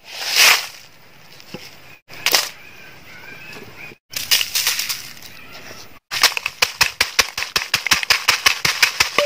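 Dried red chilies tipped into a clay mortar with a dry rustle and scattered knocks, in short edited bits. From about six seconds in, a wooden pestle pounds the chilies and garlic in quick, even strikes, several a second.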